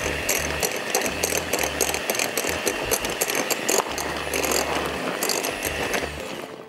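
Electric hand mixer running in a bowl of cake batter: a steady motor whine with a rapid clattering. It stops near the end.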